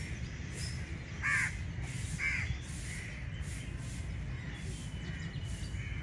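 A crow cawing twice, about a second apart, over a steady low background rumble.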